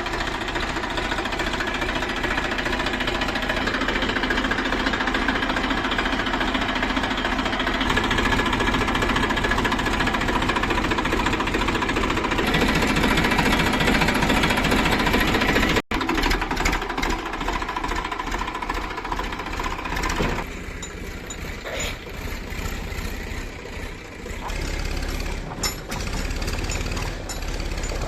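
Heavy diesel engine of working earthmoving machinery, running with a steady knocking beat. There is a brief cut just past halfway, and after that it is somewhat quieter, with a sharp knock near the end.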